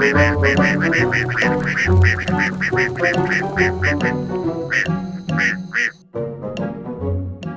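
Upbeat background music with a steady bass pulse, with a run of short duck quacks over it. The music breaks off about six seconds in and comes back sparser.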